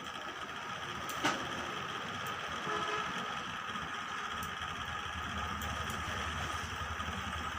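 Rechargeable charger fan's small DC motor and blades running steadily on battery power, a steady whir. A single click about a second in.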